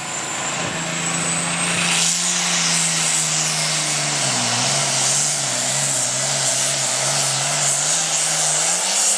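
Super farm pulling tractor's turbocharged diesel engine at full throttle, dragging a weight-transfer sled, with a high whine rising over the first two seconds. About four seconds in, the engine's pitch sags and wavers as the sled's load builds, then climbs again near the end.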